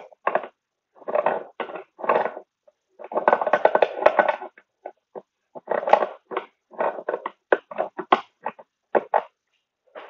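Scrap metal being worked by hand at a workbench: irregular bursts of scraping, rattling and clattering with short pauses between them, the longest stretch about three seconds in.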